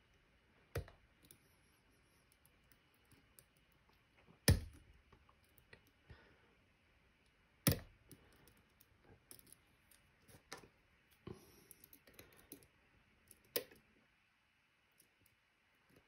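Metal lock pick and tension wrench clicking and ticking in the keyway of a Medeco M3 lock cylinder while its pins are picked: a handful of sharp clicks a few seconds apart, the loudest about four and a half seconds in, with fainter ticks between.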